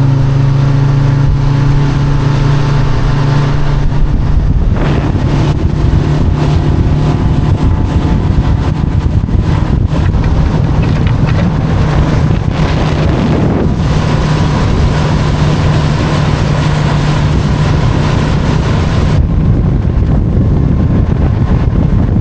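Boat's outboard motor running steadily at speed, with heavy wind buffeting the microphone. The wind hiss eases about three seconds before the end.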